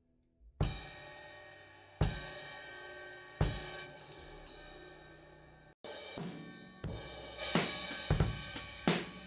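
Drum kit playback: three crash-cymbal hits with the bass drum, about a second and a half apart, each left to ring out. After a brief cut, a busier pattern of kick, snare, hi-hat and cymbal hits follows.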